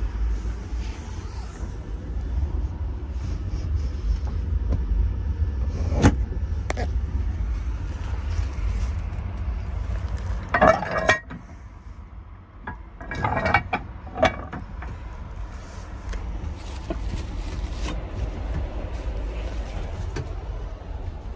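Steady low rumble inside a railway couchette compartment, with a sharp knock about six seconds in and two short bursts of clattering and rustling around the middle.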